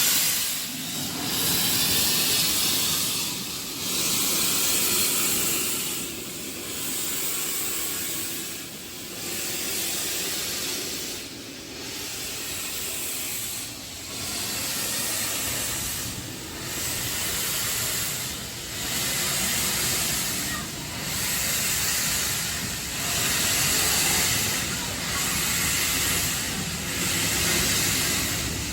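Steam locomotive hissing steam in long, even surges that swell and dip about every two and a half seconds.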